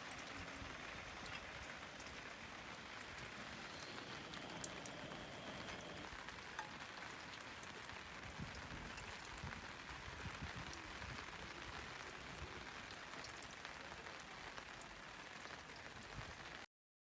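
Steady rain falling, with scattered sharp drip ticks over an even hiss; the sound cuts off abruptly near the end.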